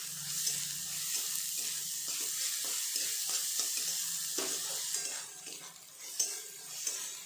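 Chopped onion, capsicum and chillies sizzling on high heat in a metal wok while a metal spatula scrapes and turns them in repeated strokes. The sizzle drops away about five seconds in, and a single sharp knock of the spatula on the pan follows.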